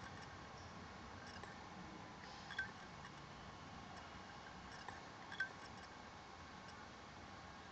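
Laptop hard drive clicking while idle: three short, sharp clicks a few seconds apart over a faint steady hum. The owner fears the clicking may be the click of death.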